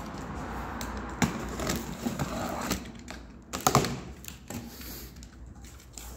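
Large cardboard box being opened by hand: irregular clicks, taps and scrapes of cardboard, with sharper knocks about a second in and a little before four seconds in.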